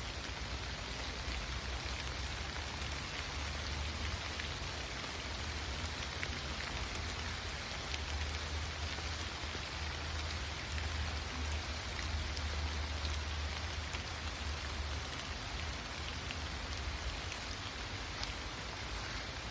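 Steady rain falling on autumn leaves, with scattered drop taps over a low rumble that swells through the middle.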